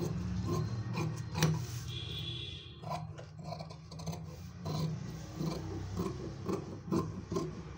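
Tailoring scissors cutting through folded blouse fabric in repeated, irregular snips, with the blades clicking and the cloth rasping. A steady low hum runs underneath.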